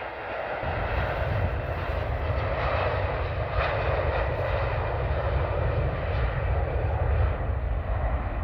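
Airbus A330-200's twin jet engines at takeoff thrust: a steady, deep rumble that swells in about a second in and holds.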